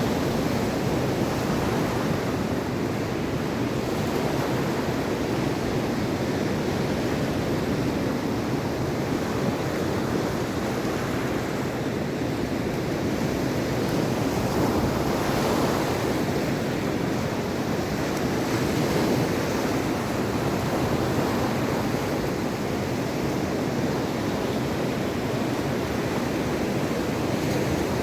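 Mediterranean Sea waves washing onto the shore in a continuous surf, rising and falling gently, with a brief brighter wash about halfway through. Some wind noise on the microphone.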